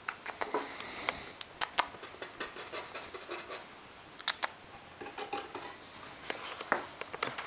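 Irregular scratching and sharp metallic clicks from a hand moving against a wire-mesh cage and handling the camera.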